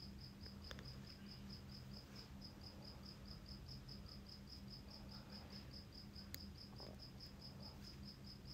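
Near-silent room tone: a faint, steady high chirping that repeats about six times a second, over a low hum.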